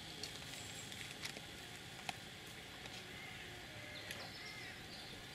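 Quiet open-air ambience: a steady faint hiss with a few sharp clicks and faint, brief bird chirps.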